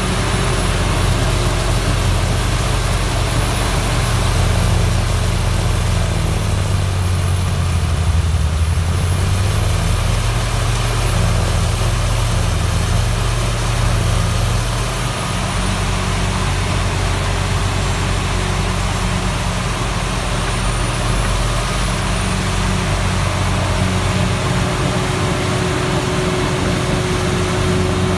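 Vohl VL-200 snowblower's 300 hp engine and the Doosan DL250 wheel loader's diesel running hard as the blower works into a snowbank: a steady heavy engine drone with a rushing noise over it and a thin high whine. The drone dips briefly about halfway through.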